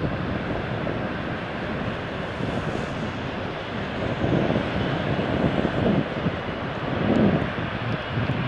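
Airbus A330 airliner's jet engines running at taxi power as it taxis close by: a steady rush of engine noise, with wind buffeting the microphone a few times.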